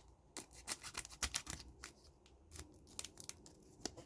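Trading cards being handled and flipped through by hand: faint, irregular clicks and scrapes as card edges slide against each other.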